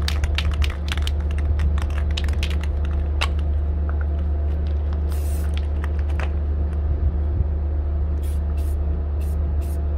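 Aerosol spray-paint can shaken, its mixing ball rattling in quick clicks, then sprayed: one longer hiss about five seconds in and a run of short hisses near the end.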